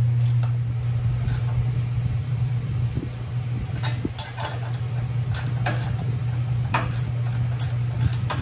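Scattered metallic clicks and clinks of a hand wrench working the nuts of U-bolts on a steel bracket, over a steady low hum.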